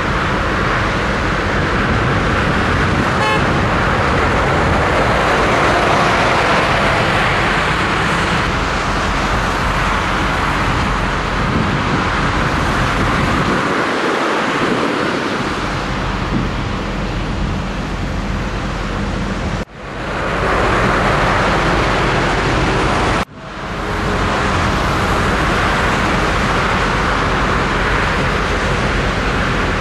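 Steady motorway traffic: lorries and cars passing at speed, a dense rush of tyre and engine noise. The sound cuts out abruptly twice in the last third and swells back in each time.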